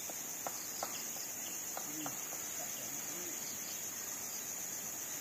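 Steady, high-pitched chorus of insects in tropical forest, with a few short faint knocks in the first couple of seconds.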